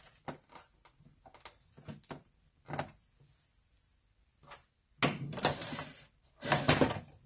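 Hands working inside the opened plastic housing of a portable air compressor: light clicks and taps, then two louder stretches of plastic parts knocking and rubbing about five and six and a half seconds in.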